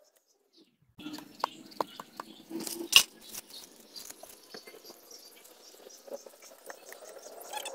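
Machete cutting and scraping at the corm of a banana sucker, paring away weevil-damaged tissue: scattered short knocks and scrapes, the loudest about three seconds in, after a near-silent first second.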